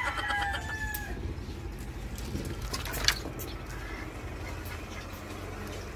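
Backyard poultry calling: a drawn-out call trails off, falling slightly, about a second in, then fainter scattered calls and a sharp click about three seconds in, over a steady low rumble.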